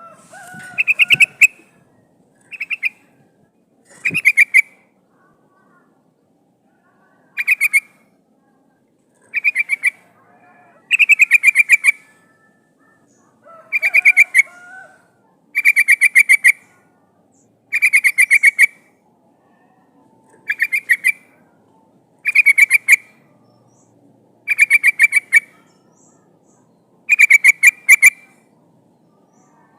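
Yellow-vented bulbul (trucukan) calling, presented as a female calling to males: about a dozen short bursts of rapid chattering notes, each under a second long and repeated every one to three seconds.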